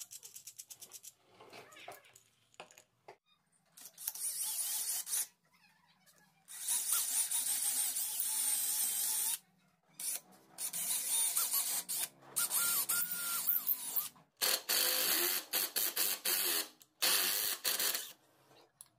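Electric drill boring into plywood in a series of runs of one to three seconds each, with short pauses between. A fast run of clicks comes at the very start.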